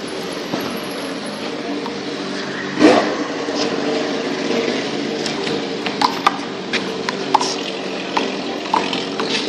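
Steady hum of traffic in the background, with a series of short, sharp smacks later on: a rubber handball being struck and bouncing off the wall and pavement.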